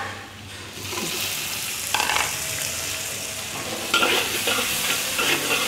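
Diced red and green bell peppers sizzling in a hot wok with minced garlic. A metal spatula scrapes and stirs across the wok, a stroke about two seconds in and several more in the second half. The sizzle picks up about a second in.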